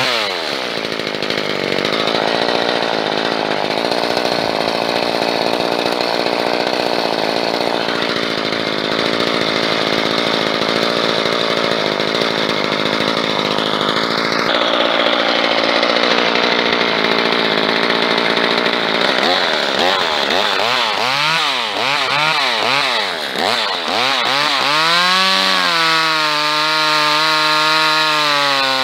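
A small engine running the whole time. Its pitch drops at the start and it runs with a rough, rasping noise over it for most of the time. From about two-thirds of the way in its pitch wavers quickly up and down, then it settles on a steady, higher note.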